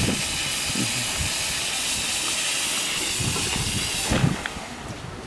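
Miniature steam locomotive No. 759 letting off steam in a steady loud hiss, which falls away about four seconds in with a short knock.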